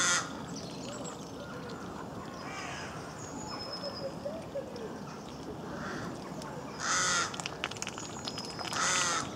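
A crow cawing three times in short, harsh, loud calls: one at the start, one about seven seconds in and one near the end. Between the calls there are softer, fainter calls and a few thin high whistles.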